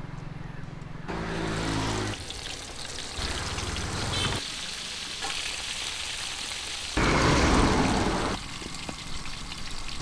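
Hot oil sizzling as marinated quail pieces deep-fry in a kadai, in short clips that change abruptly several times, with the loudest burst of sizzle near the end.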